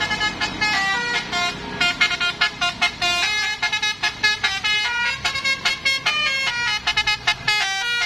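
A bus's Basuri telolet horn playing a fast melody of short notes that step up and down in pitch, the notes getting choppier in the second half.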